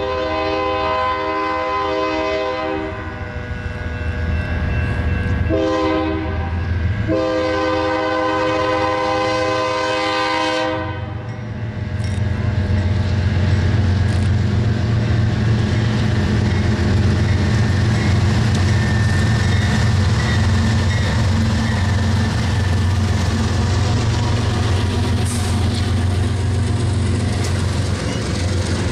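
Diesel freight locomotive's multi-note chord horn sounding the grade-crossing pattern: the end of a long blast, a short blast, then a long blast that stops about eleven seconds in. Then the locomotives' diesel engines rumble past, and the freight cars roll by with wheel noise.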